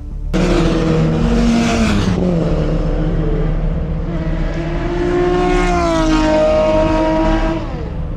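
Race car engines going past on the circuit: a loud pass starting suddenly with its note dropping away, then a second car whose note climbs, holds, and falls as it goes by.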